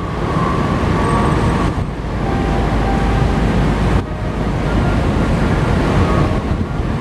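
A large passenger ferry's engines and churning propeller wash, a loud steady rumble heard from the deck as the ship gets under way.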